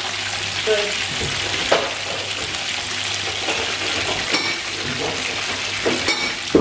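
Slices of fish frying in shallow oil in a nonstick pan, a steady sizzle with a few sharp pops.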